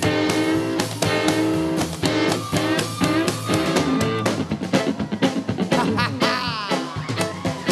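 Country-rock band playing an instrumental passage: electric guitar over bass and drum kit, with a run of sliding notes about six seconds in.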